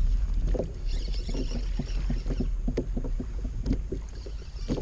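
Water slapping and splashing against the side of a fishing kayak, with a run of small irregular knocks and a steady low wind rumble on the microphone.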